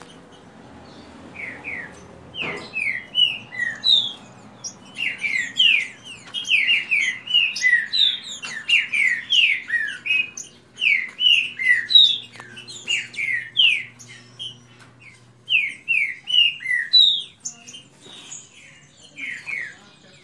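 Green-winged saltators (trinca-ferro) singing in a song duel: fast phrases of short, clear, falling whistled notes. The singing starts about a second and a half in and carries on, with a brief lull near the end.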